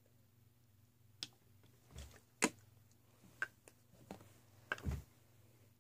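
Scattered clicks and knocks of small objects being handled and moved while someone rummages for an item. There are about seven short sounds, the sharpest a click about two and a half seconds in, with duller thumps about two seconds in and near the end.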